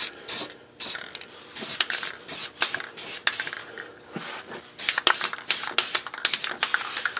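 Aerosol can of Rust-Oleum Rust Reformer hissing in many short spray bursts, several a second, with a pause about four seconds in before another quick run of bursts. The bursts are rust converter being dabbed onto rusty spots on a car frame.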